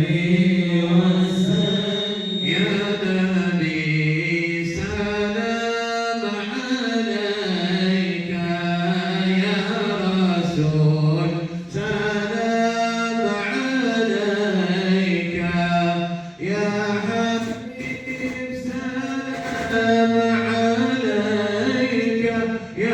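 Unaccompanied devotional chanting of salawat: voices hold a low steady note beneath a slow melody of long drawn-out notes that rise and fall, with short breaks between phrases.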